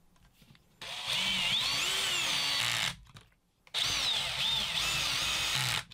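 Power screwdriver driving two screws into an impact wrench's housing: two runs of about two seconds each, the motor's whine rising and falling in pitch as it goes.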